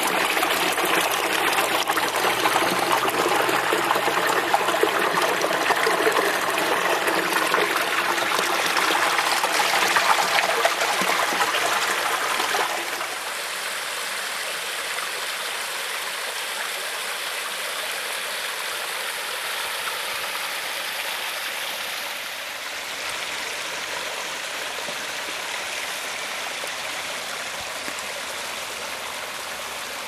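Water pouring down a newly built stone garden waterfall and splashing into the pond, a steady rushing and bubbling. About twelve seconds in it drops to a quieter, softer rush.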